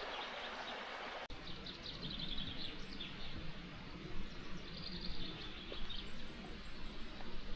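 Babbling brook running, with small birds chirping. A little over a second in, the rushing cuts abruptly to a quieter, lower rush while the chirps continue.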